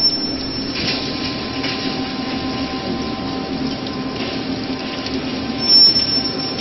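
Aluminium alloy wire rolling mill running steadily: a continuous machine hum with faint steady tones. A short high whistle sounds at the very start and again, louder, about six seconds in.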